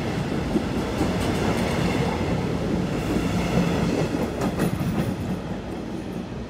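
Red DB double-deck regional train rolling along the tracks: a steady rumble of wheels on rail with a few sharp clicks as the wheels pass over rail joints, easing off slightly near the end.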